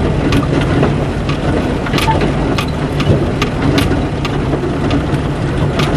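4x4's engine running low and steady, heard from inside the cab as it crawls slowly over slickrock, with irregular light clicks and rattles a few times a second.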